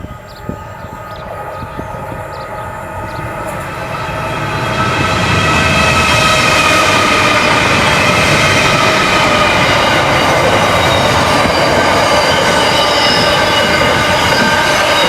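Freight train wagons rolling past at close range, their wheel and rail noise building over the first five seconds to a loud, steady rumble. High, steady squealing tones from the wheels run over it.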